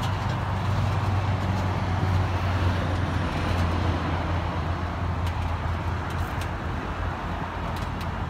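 2016 Ford Mustang GT's 5.0 V8 running at low idle as the car backs slowly down a tilted trailer deck onto gravel. It makes a steady low engine note that eases off a little near the end.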